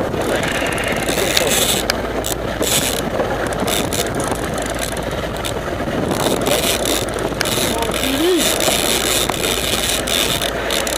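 A boat's engine running under a steady rushing noise of wind and water, with a brief voice about eight seconds in.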